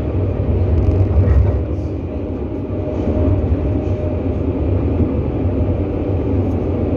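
Tram running along its rails, heard from inside the passenger car: a steady low rumble with faint ticks.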